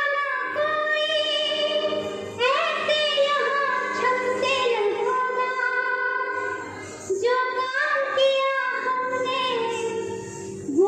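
Song playing: a woman sings long phrases with gliding pitch over instrumental accompaniment with steady held notes, new phrases starting about two and a half seconds in and about seven seconds in.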